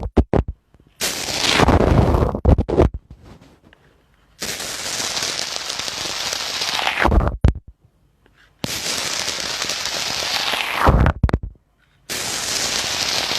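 Slime being squeezed and worked by hand, making crackling, popping noises in four spells of two to three seconds, each ending in a few low pops.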